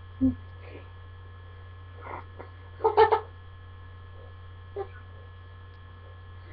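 Steady low electrical mains hum, with a few short bursts of girls' laughter and squeals, the loudest about three seconds in.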